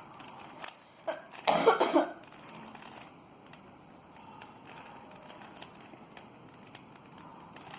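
A person coughs about one and a half seconds in, the loudest sound here. Faint, scattered clicks of a Rubik's cube being turned come and go.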